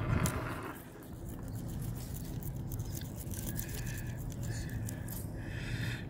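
A fillet knife cutting into a walleye along the spine, behind the gill plate. It makes a faint, scratchy rasping as the blade works through scales, skin and flesh against the backbone.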